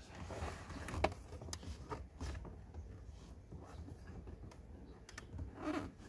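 A car's cabin air filter being handled in its plastic housing behind the glove box: a few light plastic clicks, and a louder rustling scrape near the end.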